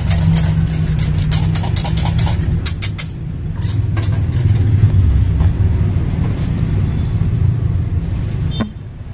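Wire whisk clicking and scraping against a metal saucepan as a thick white sauce is stirred, stopping about three seconds in, over a steady low rumble.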